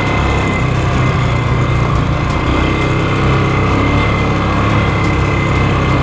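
Polaris ATV engine running steadily while the quad is ridden along a rough dirt trail, with a thin steady high whine above the engine note.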